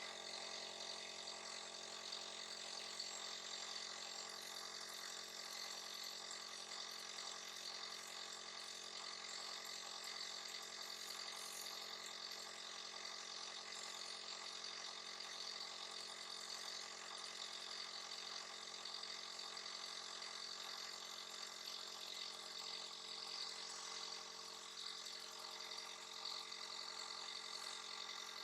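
A small motor humming steadily, with a constant whine.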